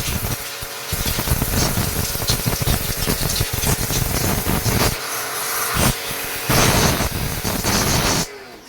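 High-pressure water spray from a pressure washer, with its motor running: a loud, steady hiss that eases off twice and then cuts off suddenly near the end.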